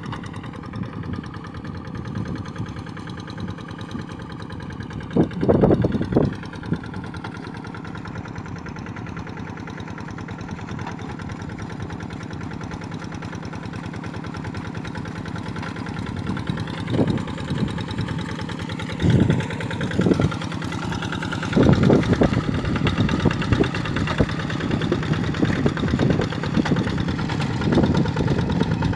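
Single-cylinder Kubota RD85 diesel engine of a two-wheel hand tractor running steadily while the tractor works through flooded paddy mud. It grows louder as the tractor comes closer, with a few brief louder rushes of noise.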